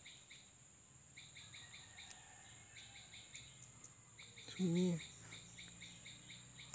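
Faint background of insects: a steady high-pitched drone with rows of short chirps repeating several times a second.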